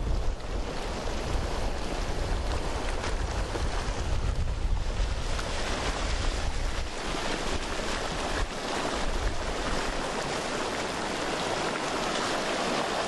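Floodwater rushing down a desert wash in a flash flood, a steady dense roar of moving water. Wind buffets the microphone with a low rumble that eases about two-thirds of the way through.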